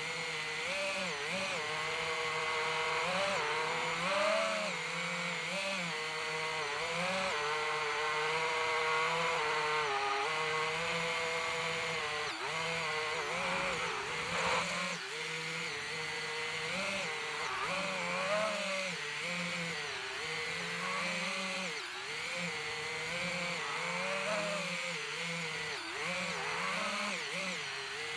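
DJI FPV drone's motors and propellers buzzing in flight, the pitch rising and falling continually as the throttle changes.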